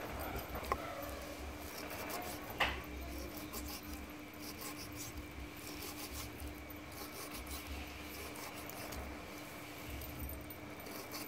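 Kitchen knife slicing raw beef on a wooden chopping block: repeated soft cutting and rubbing of the blade through the meat, with two sharp clicks, about a second in and about two and a half seconds in.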